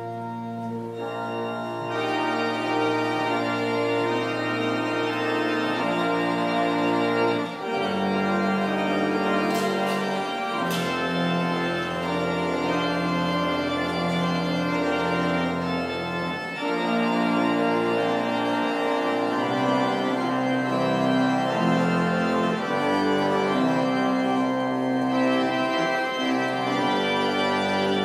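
Organ playing slow, sustained chords over low bass notes, the harmony changing every second or two.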